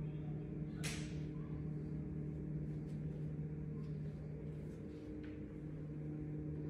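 A steady low hum with a few even tones, with a brief rustle about a second in.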